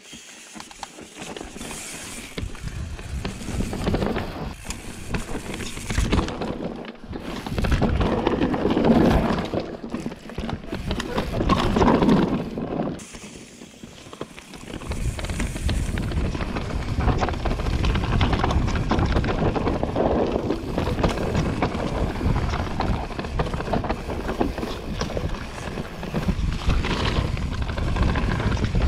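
Mountain bike riding fast down a dirt singletrack: tyres rolling and skidding over roots and rocks, with the bike rattling and clattering and wind buffeting the helmet-mounted microphone. It eases off briefly about halfway, then runs on steadily.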